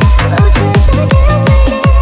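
Loud electronic dance music for an aerobics workout: a fast, even kick-drum beat under held synth tones.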